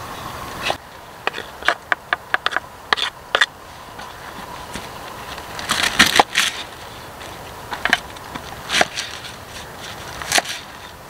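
Knife chopping tomato and onion on a wooden board: sharp knocks of the blade striking the wood, a quick run of them in the first few seconds, a cluster about six seconds in, then a few single strokes.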